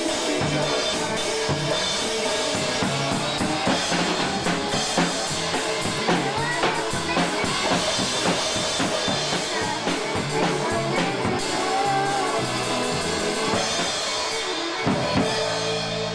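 Acoustic drum kit played by a young child, with bass drum, snare and cymbal hits throughout, over a recorded polka-style country song in an instrumental stretch without singing.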